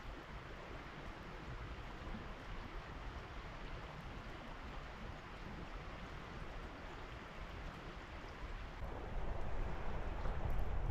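Steady rushing of river water, growing somewhat louder about nine seconds in.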